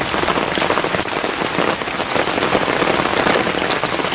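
Heavy rain pouring down, a steady dense patter of drops.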